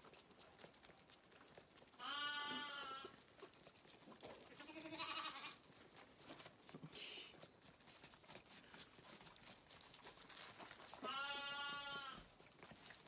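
A lamb bleating three times: a call about two seconds in, a shorter, fainter one about five seconds in, and a longer one near the end.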